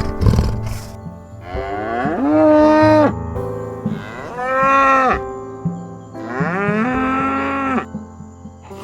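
Cattle mooing three times, each moo rising in pitch and then holding steady for about a second before stopping.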